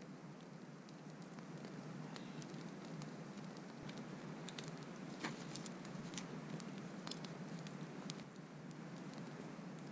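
Small wood campfire burning down, giving off faint scattered crackles and pops over a steady low background noise.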